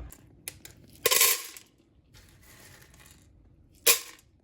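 Dry beans clattering into a container: a few small clicks, a brief loud rattle about a second in, and one sharp click near the end.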